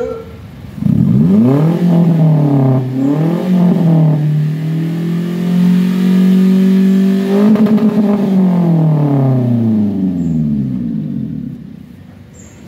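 Daihatsu Gran Max pickup engine revved through a racing muffler held over the tailpipe: the revs rise about a second in, waver up and down, hold higher, blip quickly a few times, then fall back and fade near the end.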